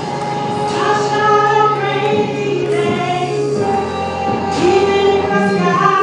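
Gospel song with sung vocals, long held notes over instrumental backing and a steady bass.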